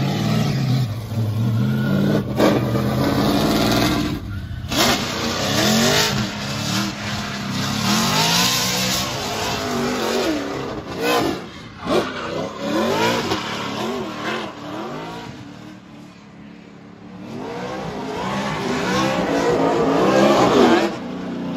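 Ford Mustang RTR drift car's engine revving up and down over and over as the car slides sideways through a drift, its tyres spinning and smoking. It eases off about two-thirds of the way through, then builds to its loudest near the end.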